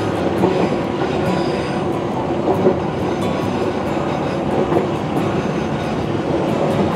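Passenger train running along the track: a steady rumble and rush of running noise with a scattering of sharp clicks from the wheels over the rails.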